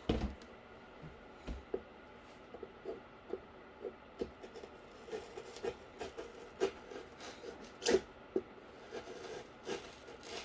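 Cardboard being handled and worked on a bench: scattered light taps and rustles, with one louder knock about eight seconds in.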